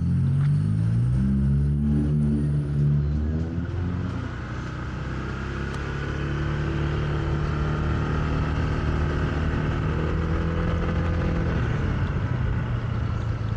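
Motorcycle engine speeding up over the first few seconds, its pitch rising, then running at a steady cruise with road noise, heard through a helmet-mounted microphone.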